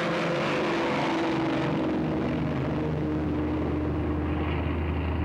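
Short Sunderland flying boat's four radial piston engines running at take-off power as it races across the water and lifts off, a steady propeller drone whose tones drift slightly in pitch. The deeper drone grows stronger from about two seconds in as the hiss above it fades.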